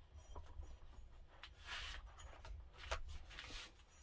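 Faint handling sounds as an air bottle is handled and fitted to a bottle-conversion adapter: two soft rustling scrapes and a light click between them.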